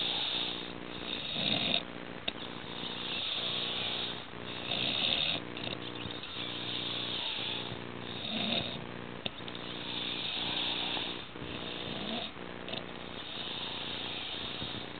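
A man passed out drunk, snoring loudly, one rattling snore with each breath about every two to three seconds.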